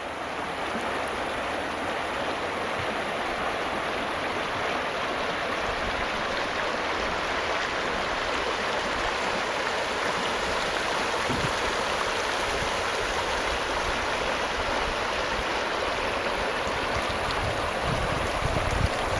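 River water rushing past in a steady, even wash, with a few low thumps near the end.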